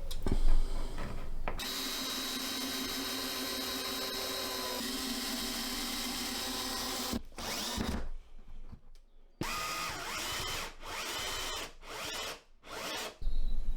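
Power drill running steadily for about five seconds, then in a run of short bursts with brief pauses between them.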